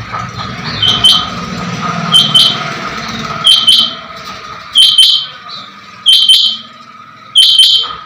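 Chinga batair quail calling: a sharp, high double note repeated six times, about once every 1.3 seconds.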